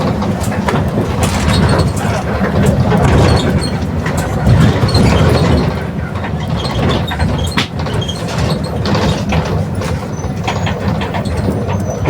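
Mercedes-Benz OF 1721 bus under way, its drivetrain running loud and steady, with the growl of a worn rear differential. Many short rattles from the Marcopolo Torino body come through over it.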